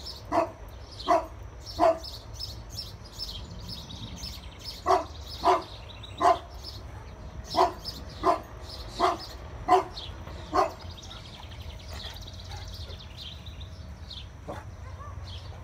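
St. Bernard barking at a ceramic deer lawn ornament: about eleven deep barks in three runs of three, three and five, then a pause near the end. Birds chirp faintly in the background.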